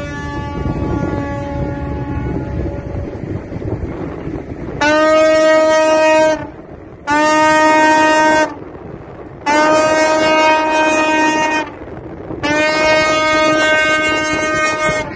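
Tugboat horns sounding four long blasts of about two seconds each, one steady pitch, in celebration of the refloated Ever Given. In the first two seconds a second horn of a different pitch fades out over the low rumble of the boat's engine and rushing wake water.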